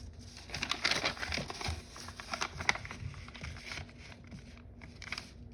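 Sheet of foil origami paper crinkling and crackling as it is handled and folded: a dense run of crisp crackles for the first few seconds, then a few scattered ones.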